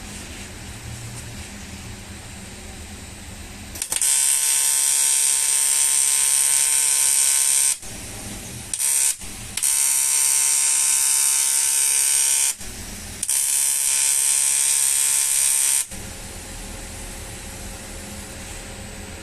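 AC TIG (argon) welding arc on an aluminium alloy wheel: a loud, steady electric buzz with a hiss, struck four times in a row. The bead runs about four seconds, then there is a brief burst, then two more runs of about three seconds each, with short pauses between.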